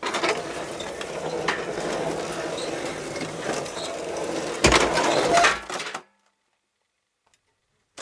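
Metal folding chairs scraped, creaked and rattled as Foley, with small metallic clinks, then two heavy metal clanks of a chair about four and a half and five seconds in. The sound cuts off suddenly about six seconds in.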